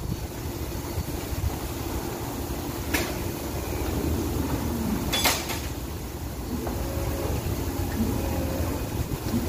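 Steady low mechanical hum of barn machinery, with two sharp knocks, one about three seconds in and one about five seconds in.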